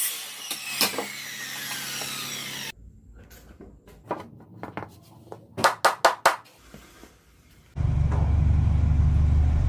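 Woodworking tool sounds in cut-together pieces: a power tool running and slowing, then scattered knocks with four sharp knocks in quick succession, then a steady low machine hum that starts suddenly near the end.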